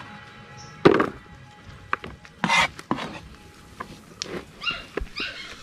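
A chef's knife knocking on a plastic cutting board while chopping leafy greens: a few sharp knocks about a second apart, over faint background music. Near the end comes a quick run of short high animal calls.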